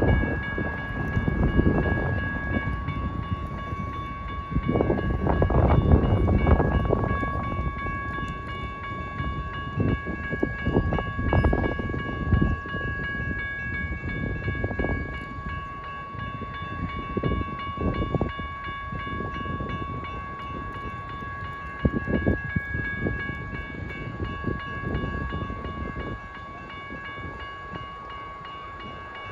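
Railroad grade-crossing warning bells ringing continuously while the crossing signals flash and the gate arms come down, over an uneven low rumble that swells and fades several times.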